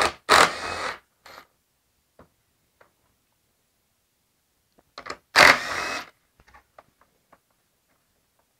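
Cordless 12-volt impact driver running in two short bursts, about half a second in and again about five seconds later, backing nuts off a truck grille, with a few small clicks of handling around them.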